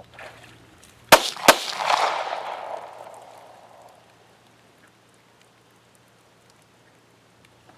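Two 9mm pistol shots from a Gen 4 Glock 17, less than half a second apart, each a sharp crack, with a noisy tail fading over about two seconds. The pistol is firing just after being dipped in muddy water.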